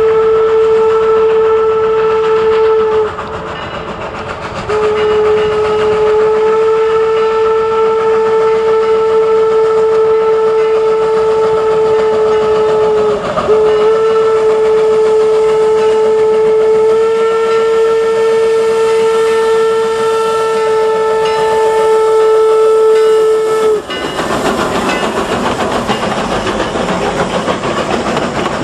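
Eureka & Palisade No. 4, an 1875 Baldwin 4-4-0 narrow-gauge steam locomotive, blowing its whistle on one steady tone: a short blast, a pause, then two long blasts that run most of the way through. Near the end the whistle stops and the noise of the train running close past takes over.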